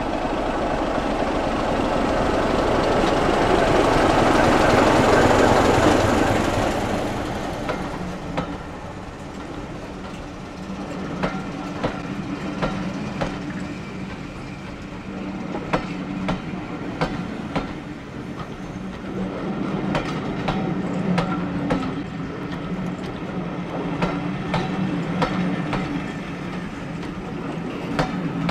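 BR Class 25 diesel locomotive with its Sulzer engine passing close by, loudest about five seconds in, then its train of coaches rolling past. The wheels clickety-clack over rail joints under a steady low hum.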